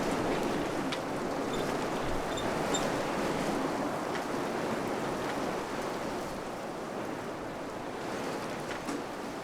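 Wind blowing steadily, a rushing noise that eases slightly toward the end.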